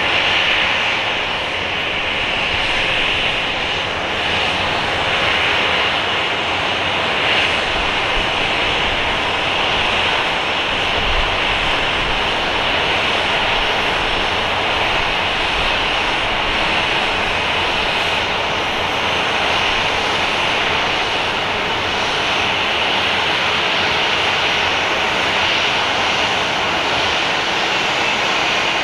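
Boeing 787-8's twin jet engines running at low taxi thrust: a steady, continuous jet noise dominated by a high hiss.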